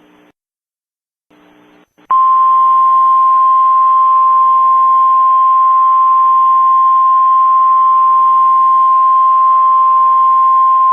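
NOAA Weather Radio warning alarm tone: a single loud, steady high tone that starts about two seconds in, after a moment of faint radio static and a short silence. It signals that a warning broadcast is about to follow.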